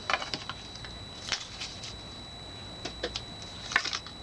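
Light clicks and rustles of small cosmetic products and their packaging being handled and set down, with a louder cluster of clicks near the end.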